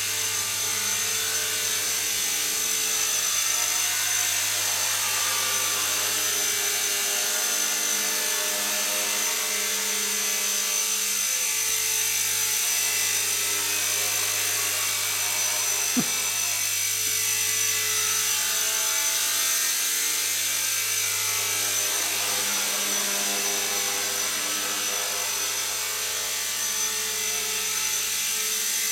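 Align T-Rex 250 electric RC helicopter in a Mi-24 Hind scale fuselage flying and hovering, with a steady high whine from its motor and gears over the rotor's buzz. A single sharp click is heard about halfway through.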